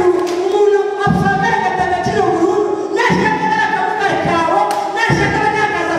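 Unaccompanied singing, with low thumps now and then through it.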